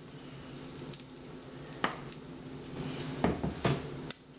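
Pancake batter sizzling steadily in a hot frying pan, with a few short knocks of utensils or dishes about two seconds in and again near the end.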